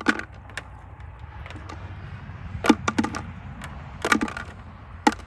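Small metal fasteners clinking as they are handled and dropped into a container, in several short clusters of sharp clicks.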